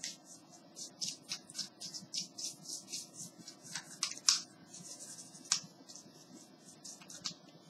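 A brush scrubbing the keys of a laptop keyboard to clean them, in quick, irregular scratchy strokes, several a second.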